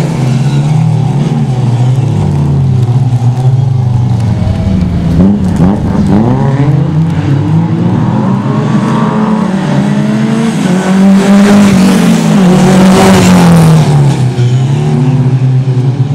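Rally car engine being driven hard through corners, revving up and easing off again and again so the pitch rises and falls repeatedly.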